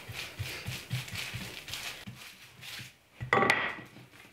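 Wooden rolling pin rolling over dough wrapped in plastic wrap on a countertop: soft, uneven bumps with a light plastic rustle. About three seconds in comes a louder knock as the pin is set down on the counter.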